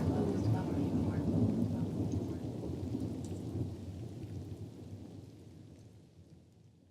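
Low rumbling noise with faint scattered crackles, fading out gradually and dying away near the end.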